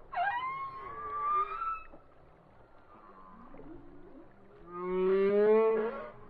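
Humpback whale song: two long pitched calls. The first is a high whoop that dips, then sweeps up and holds for about two seconds. The second, near the end, is a lower moan of about a second and a half that rises in pitch.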